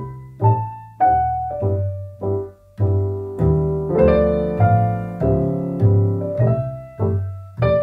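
Background piano music: gentle single notes and chords, each struck and left to fade, about two a second.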